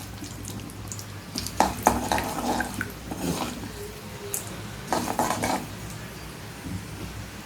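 Mustard seeds and urad dal spluttering in hot oil in a kadai: a steady hiss with scattered sharp pops, plus a few clinks of metal utensils.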